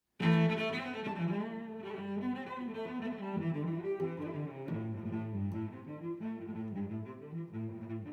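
Instrumental music, with what sounds like a cello and other bowed strings playing a melody that starts suddenly just after the beginning.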